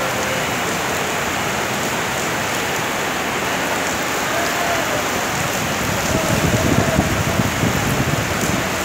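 Steady rain falling, a continuous even hiss, with a louder, rougher low rumble from about six to eight seconds in.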